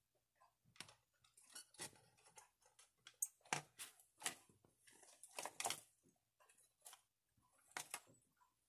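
Plastic soda bottle crinkling and clicking as it is handled and turned, a faint, irregular run of crackles with a few sharper clicks in the middle.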